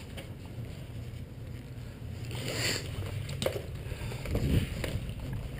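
Rustling and handling of a player's clothing and gear on the move, with a sharp click about three and a half seconds in.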